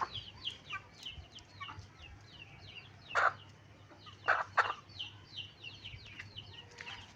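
Aseel chickens: three short loud clucks, one about three seconds in and two close together about four and a half seconds in, over a continuous run of high, falling peeps.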